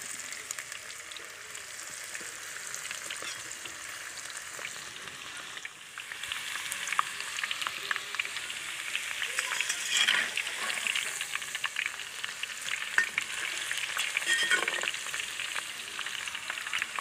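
Besan-coated okra deep-frying in hot ghee in a clay karahi: a steady sizzle full of small crackling pops, which grows louder about six seconds in.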